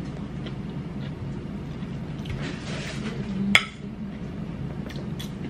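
A fork clinks once, sharply, against a plate about three and a half seconds in, with faint softer clatter just before, over a steady low background hum.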